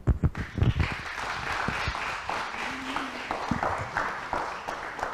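A small group clapping steadily, after a few low thumps at the start.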